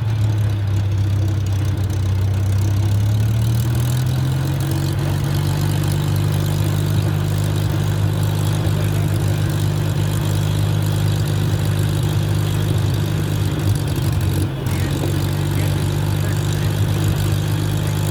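Hawker Hurricane's Rolls-Royce Merlin V12 engine running steadily at low revs, rising slightly in pitch about three seconds in and then holding steady.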